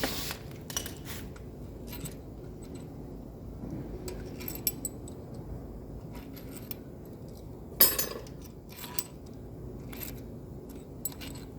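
Metal hand tools clinking and tapping on an engine as the cylinder head is taken apart, in scattered sharp clicks over a low steady hum, with one louder metal clack about eight seconds in.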